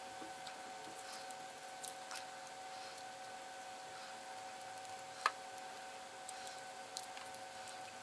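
Craft knife blade scraping under old electrical tape and the tape being peeled off a plastic key fob case: faint small scratches and clicks, with one sharper click about five seconds in. A faint steady hum runs underneath.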